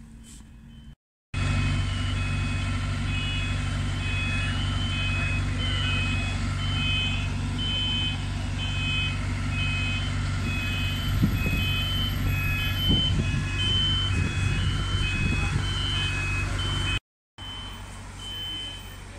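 Diesel engine of a site dumper at track works running steadily, with a repeating warning beeper that alternates between two pitches. A few clanks sound near the middle.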